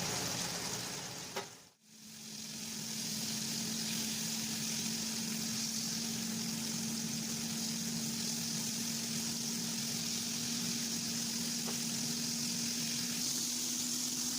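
Breaded chicken nuggets frying in hot oil, a steady sizzle. The sound drops out briefly about two seconds in, and after that a steady low hum runs under the sizzle.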